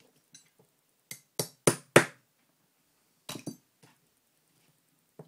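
Sharp metal knocks: a screwdriver being tapped to drive a stuck old ball bearing out of an aluminium part of an RC truck. Four knocks come in about a second, growing louder, and a quick cluster follows about a second and a half later.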